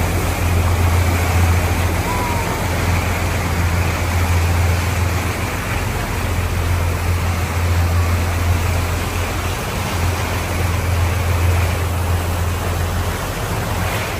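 Motorboat engine droning steadily under a constant rush of wind and water as the boat runs along.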